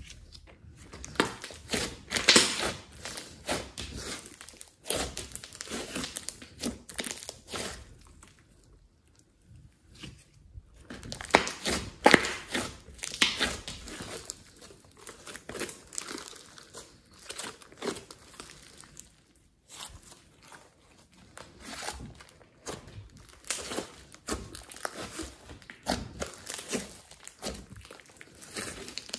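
Thick clay-mixed slime being stretched, folded and squeezed by hand: irregular sticky crackling and tearing sounds in bursts, with a couple of short lulls.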